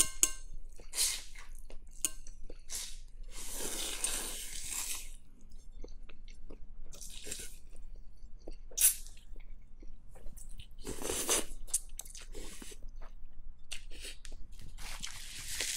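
Slurping pho rice noodles off chopsticks in several long, hissy draws, with wet chewing and small mouth clicks between them.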